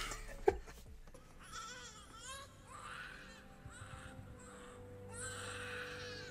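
An infant crying in a series of wavering wails from the anime episode's audio, with a single held music note beneath the later cries. A sharp knock comes about half a second in.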